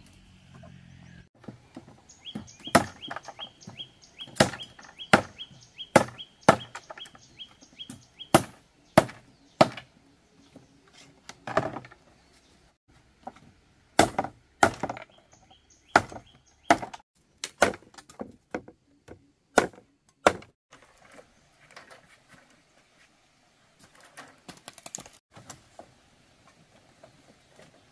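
Bamboo knocking and clacking as a woven bamboo basket is worked by hand, with irregular sharp knocks that come thick for about twenty seconds and then thin out.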